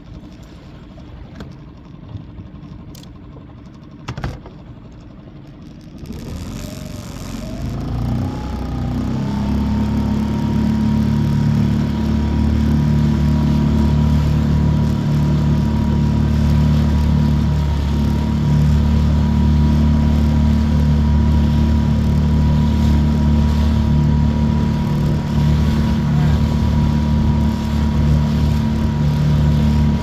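Boat motor on a Pelican Bass Raider 10E speeding up about six seconds in, its pitch climbing over a few seconds, then running steadily under way. A deep hum and a thin steady whine carry on to the end. Before it speeds up, a couple of short knocks are heard.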